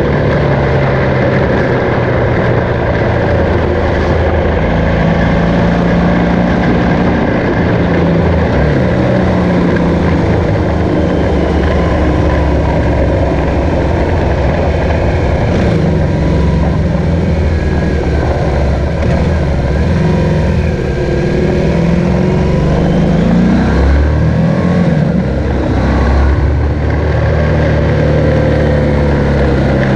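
BMW R1200GS flat-twin boxer engine running at road speed, with wind noise over the bike. The revs rise and fall repeatedly in the second half as it climbs through the bends.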